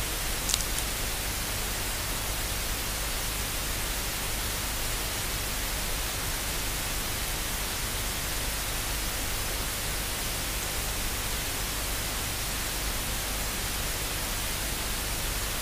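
Steady hiss of recording noise with a low hum underneath, and one short high click about half a second in.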